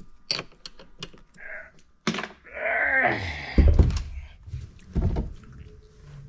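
Clicks and knocks of a heavy marine battery being handled and lifted out, then a heavy thunk as it is set down about three and a half seconds in, and another knock near the five-second mark.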